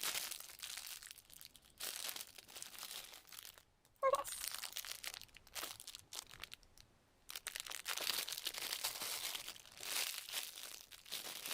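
Plastic packaging around a squishy toy crinkling as it is handled, in irregular bursts with a couple of short pauses.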